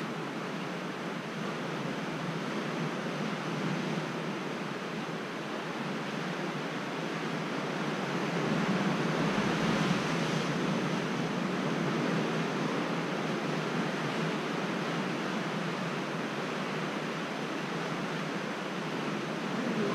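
Steady rush of sea surf, swelling a little about halfway through.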